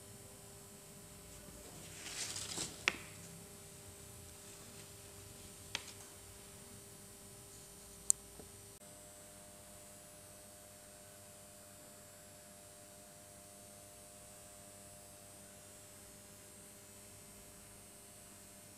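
Faint steady hum of room tone. A brief rustle about two seconds in ends in a sharp click, and two more short clicks follow, the sharpest about eight seconds in.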